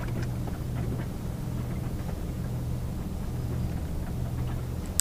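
Boat engine idling with a steady low hum. A single sharp click near the end.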